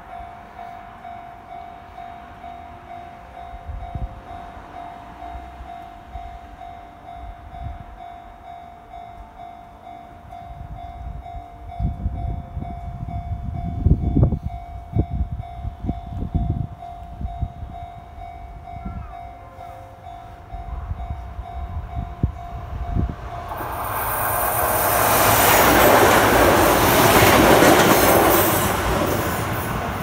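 Japanese level-crossing alarm ringing steadily while its lights flash, with low irregular thumps about halfway through. Near the end a Kintetsu electric train passes over the crossing, the rush and clatter of its wheels building to the loudest part and drowning out the bell.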